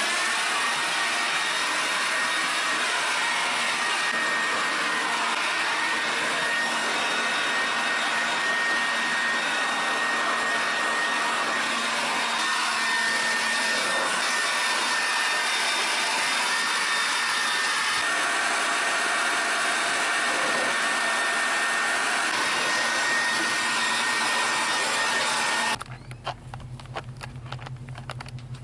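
A small electric motor driving a fan, running steadily with a faint high whine, then switched off abruptly about 26 seconds in.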